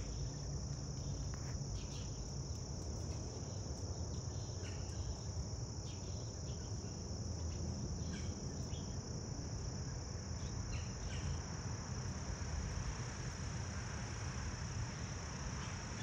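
Steady, high-pitched insect chorus over a low background rumble, with a few faint short calls scattered through it.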